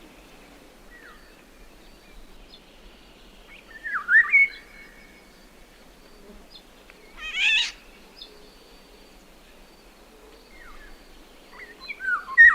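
Eurasian golden oriole calling: fluting whistled phrases about four seconds in and again near the end, with a short harsh, rasping call a little past halfway.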